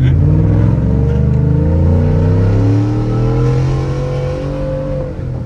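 Ford F-150 pickup engine accelerating, its pitch rising over the first few seconds and then levelling off and easing down near the end, heard from inside the cab.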